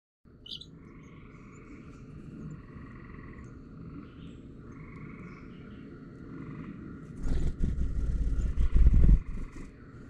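Frogs trilling in two long, steady calls of about three seconds each, with a short high bird chirp near the start. From about seven seconds a loud, fluttering low rumble takes over for two seconds.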